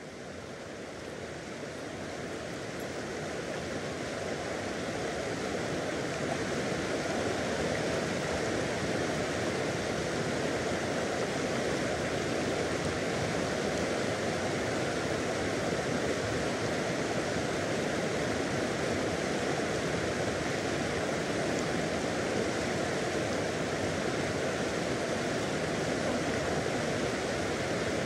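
Rushing river water: a steady, even rush of noise that fades in over the first few seconds and then holds level.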